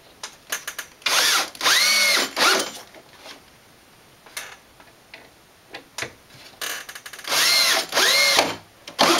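Cordless drill driving wood screws through a plywood shelf into 2x4 framing, in two runs about five seconds apart with a short blip near the end. In each run the motor's whine rises in pitch, then drops as the screw bites and seats. Light clicks and knocks of handling come in between.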